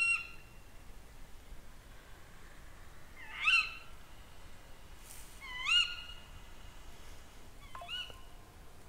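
Tawny owl calls: three sharp, rising calls about two seconds apart, the last one fainter.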